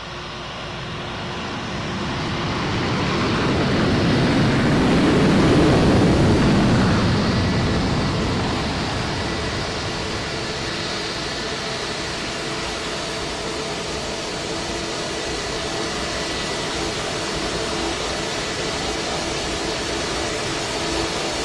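Jet aircraft passing: the engine roar swells, peaks about five seconds in, then fades to a steady rumble.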